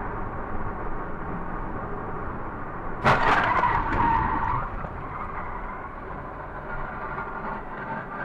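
Car road and engine noise as heard from a dash cam, broken about three seconds in by a sudden bang with a clatter, then a tyre squeal that lasts about a second and a half and fades back into the steady road noise.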